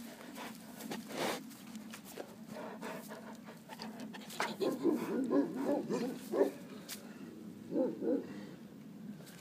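Pyrenean mastiff dog whining and yelping in a quick run of short wavering calls about halfway through, and again briefly near the end, after light crackling in dry leaves.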